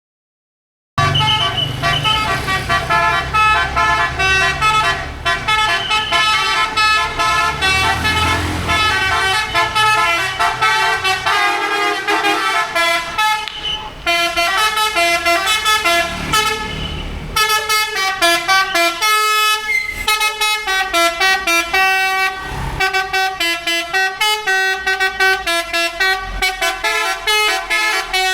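Bus's multi-tone Basuri telolet horn playing a long melody of quick staccato notes, starting about a second in. A low rumble sits under the first half.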